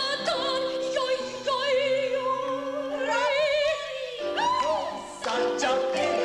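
Operetta soprano singing with a wide vibrato over an orchestra, gliding up to a high note partway through. Near the end the accompaniment switches to a quicker dance rhythm with sharp, regular beats.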